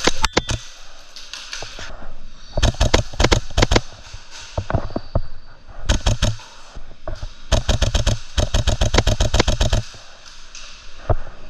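Novritsch SSQ4 HPA airsoft rifle firing in quick strings of sharp shots: a few scattered shots, a cluster a few seconds in, a short burst, then a long rapid burst of about two seconds near the end.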